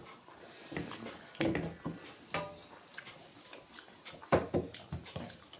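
Eating sounds: scattered chewing and mouth noises with small clicks, and a sharper click about four seconds in.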